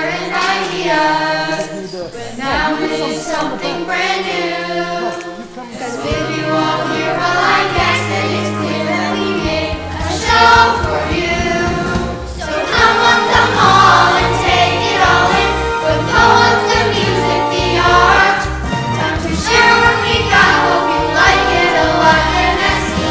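Young voices singing a musical-theatre song over a backing track; a fuller, lower accompaniment comes in about six seconds in.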